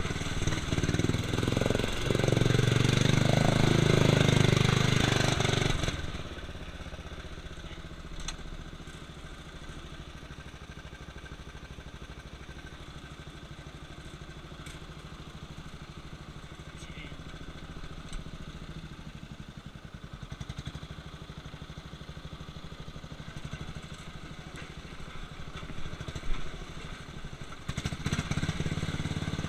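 Murray lawn tractor engine running loud and hard, then dropping about six seconds in to a quieter, steady low-speed run for most of the stretch, and picking up again near the end.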